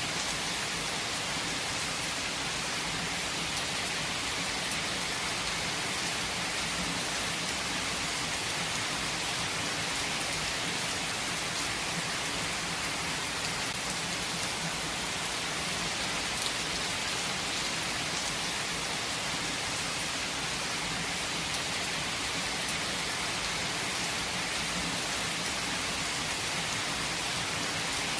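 Steady rain falling, an even hiss with faint scattered drop clicks.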